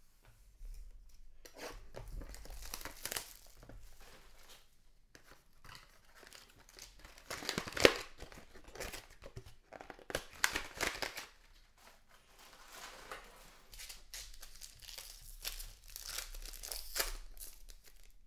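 Trading card packaging being torn open and crinkled by hand, irregular rustling with a few sharper crackles about eight and ten and a half seconds in.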